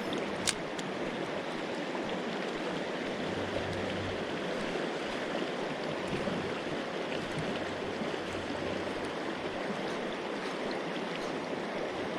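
Steady rushing of river water flowing over rocks, with one sharp click about half a second in.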